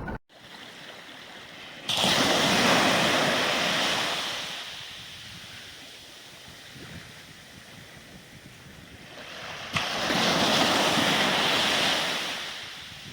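Sea waves breaking: two loud surges about eight seconds apart, each starting suddenly and fading away over a couple of seconds, with a quieter wash between them.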